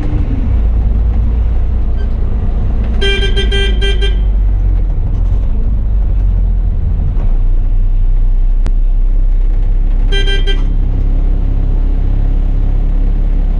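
A vehicle horn sounds twice: a blast of about a second three seconds in and a shorter one near ten seconds. Under it runs the bus's steady low engine rumble, heard from the driver's seat.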